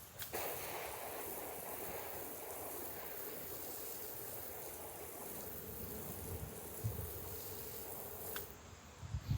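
Garden hose spray nozzle spraying water onto a grass-seed patch mat: a steady hiss that starts sharply just after the start and cuts off about a second before the end.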